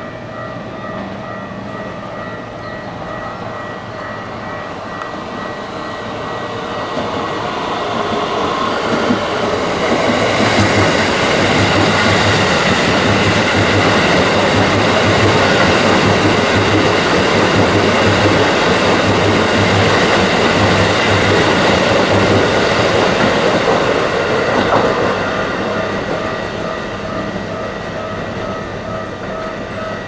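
Keikyu 1000 series electric train passing close by. It builds up as it approaches, runs loudest for about fifteen seconds with a rhythmic clickety-clack of wheels over rail joints, then fades as it moves away.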